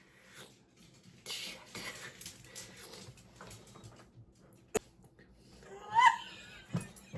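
A person stifling laughter: breathy, wheezy puffs, then a short squeaky giggle about six seconds in, with a sharp click just before it.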